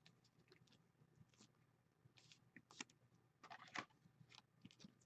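Near silence, with faint scattered clicks and brief rustles of trading cards being handled, a few of them clustered around the middle.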